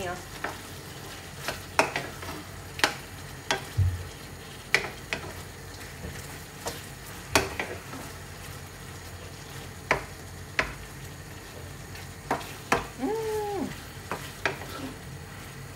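Pork pieces in barbecue sauce sizzling in a frying pan, stirred with a wooden spatula that knocks and scrapes against the pan at irregular intervals over a steady frying hiss.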